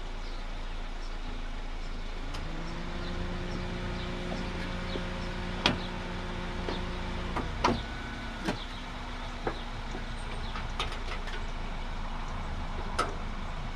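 A car's hood being opened and handled: a few sharp clicks and metal clunks over a steady low rumble. A humming, engine-like drone comes in a couple of seconds in, holds for about five seconds and stops.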